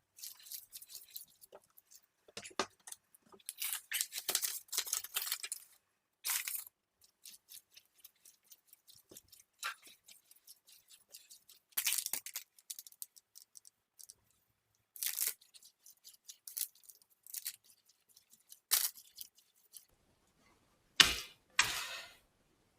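Herring fish mince being mixed in a bowl: irregular short scraping and clicking noises with pauses, and a few sharper knocks near the end.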